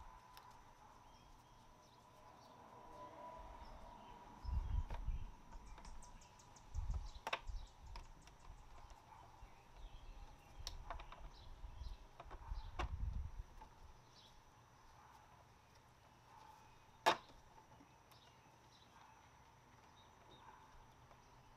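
Faint handling noise from a car's plastic front bumper cover and grille: a few dull knocks and scattered sharp plastic clicks, one much louder click late on, over a steady high insect drone.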